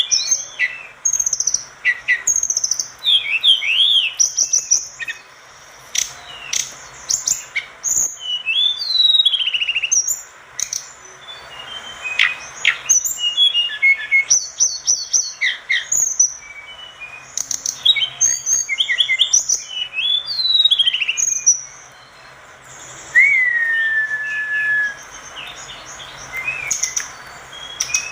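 A tledekan gunung songbird singing continuously: a rapid, varied stream of high chirps, trills and quick pitch glides, with one longer whistle near the end that drops and then holds steady.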